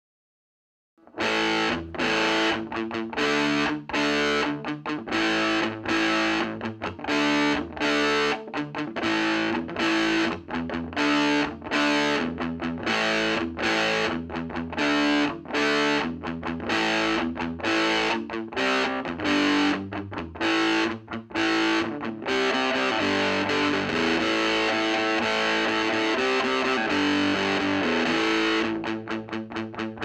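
Electric guitar played through the overdrive channel of an Ever Play RG-60 solid-state 2x12 combo amp: distorted chord riffs in short stop-start bursts, starting about a second in. About three quarters of the way through the playing changes to held, ringing chords, then turns choppy again near the end.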